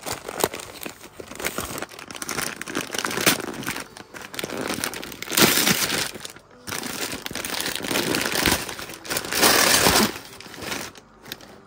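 Gift wrapping and packaging being crumpled and torn as a present is unwrapped, irregular rustling in bursts, loudest about halfway through and again near the end.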